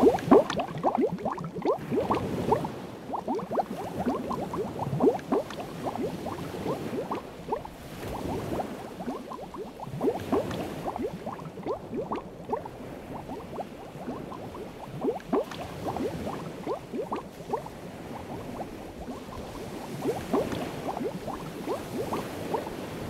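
Water bubbling and gurgling steadily in an aquarium tank: a continuous stream of small bubble pops and glugs.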